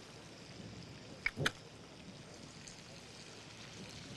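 Faint sizzling of sausage and bell peppers frying in a pan, with two short clicks about a second and a half in.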